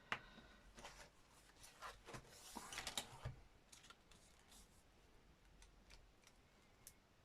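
Near silence with faint scattered clicks and soft rustling of paper journal pages being handled, a little busier about two to three seconds in.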